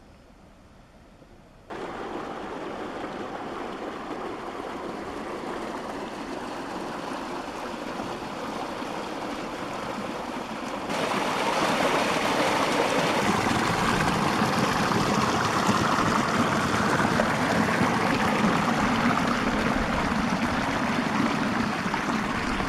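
Water rushing and splashing through a stone-lined irrigation channel, a steady rush that starts about two seconds in and grows louder about eleven seconds in.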